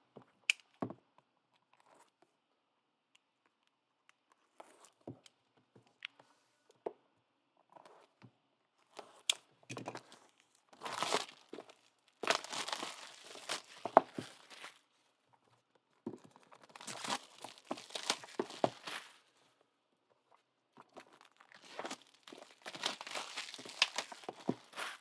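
Plastic wrapping on trading card boxes and packs being torn and crinkled in four rustling bursts of a few seconds each through the second half, after a few sharp clicks and taps early on.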